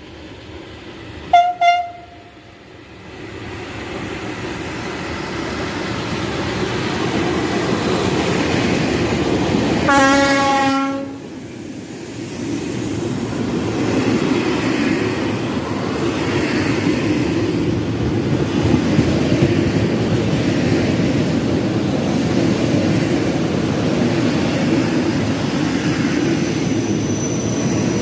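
Diesel-hauled track-renewal work train passing close by, with a steady rumble and wheel noise from the wagons and track machinery. Its horn gives two short high toots about a second and a half in, then one longer, lower blast of about a second at around ten seconds.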